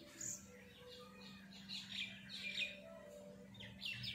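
Small birds chirping: runs of short, quick, falling chirps, with a faint steady low hum underneath.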